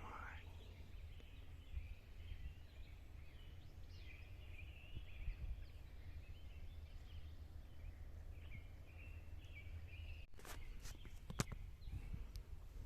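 Faint outdoor ambience: small birds chirping on and off over a steady low rumble, with a few sharp clicks or knocks about ten seconds in.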